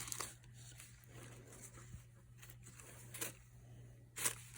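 Faint rustling of a thin scarf being handled, with two brief louder rustles about three and four seconds in.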